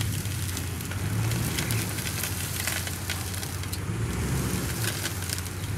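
A vehicle engine running steadily at low revs while a car is pulled forward, with scattered crackling clicks over it.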